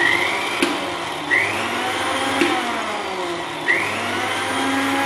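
Electric countertop blender running at speed, churning mint leaves with sugar, lemon juice and water in its jug. The steady motor whir has a whine that sweeps upward three times, with a few light knocks.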